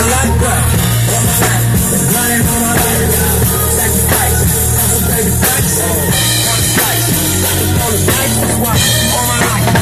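A full drum kit played live along with a recorded song coming through loudspeakers, with a heavy bass line and a vocal in the recording under the drums.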